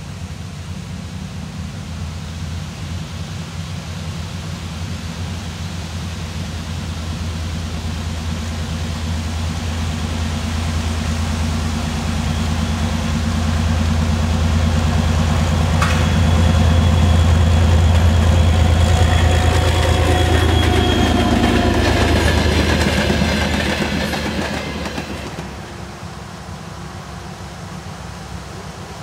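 Soviet-built M62-type diesel locomotive's two-stroke engine drone hauling a train, growing louder as it approaches, with wheel clatter and a thin high whine at its loudest. The sound falls away sharply near the end.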